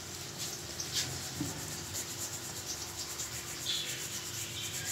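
Maize flour being rubbed by hand through a steel mesh sieve: repeated scratchy rubbing strokes of fingers and flour on the mesh.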